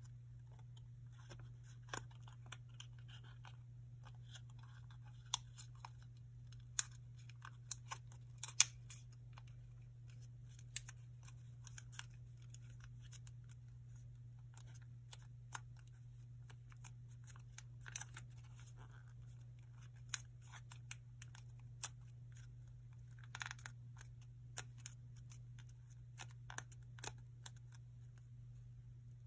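A small square of origami paper crinkling and creasing in the fingers as it is collapsed into a triangle along its existing creases: irregular crisp crackles and clicks, some louder than others, over a steady low hum.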